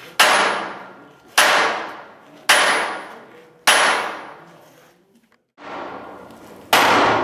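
Sledgehammer blows on a handled set tool held against a steel locomotive firebox tube sheet, hand-flanging the plate: heavy ringing strikes about one a second, each dying away before the next. There is a short break a little past the middle, then the strikes resume.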